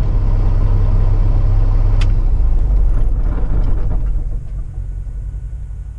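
Semi-truck diesel engine running, a low steady rumble heard inside the cab, with a single sharp click about two seconds in. The sound drops in level near the end and begins to fade out.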